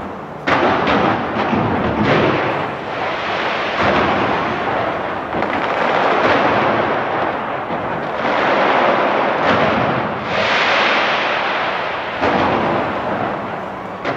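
Large aerial fireworks display: a loud, continuous barrage of bangs and crackling, with fresh surges of bursts every couple of seconds.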